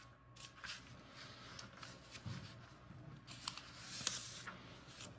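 Faint rustle of paper sheets being handled, with scattered soft clicks; the rustle is loudest between about three and four seconds in.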